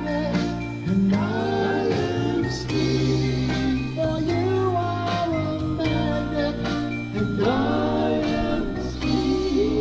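Background music: a song with a singing voice over guitar, bass and drums with a steady beat.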